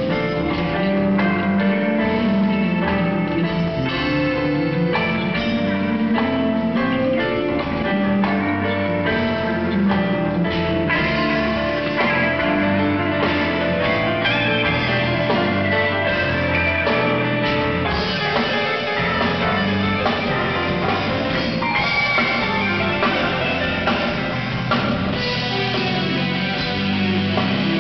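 Rock band playing live: electric guitar, bass guitar, drum kit and keyboards together, at a steady loud level.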